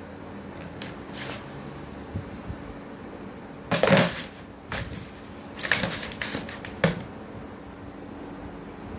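Shallow plastic tray scraping and clattering on a tiled floor as a cat paws at it and shoves it around. There are a few short bursts, the loudest about four seconds in and another cluster around six seconds.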